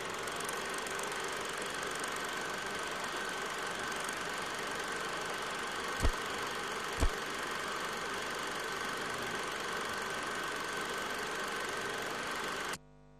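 Old film projector sound effect: a steady mechanical whirr and rattle with hiss and a faint high whine, running under a countdown leader. Two loud low thumps come about a second apart midway, and the sound cuts off suddenly near the end.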